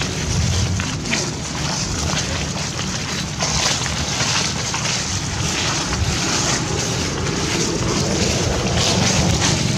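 Wind buffeting the microphone: a steady rumbling hiss.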